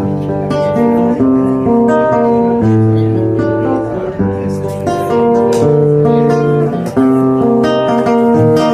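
Acoustic guitar and transverse flute starting the instrumental introduction of a chacarera doble, the flute playing a melody of held notes over strummed guitar.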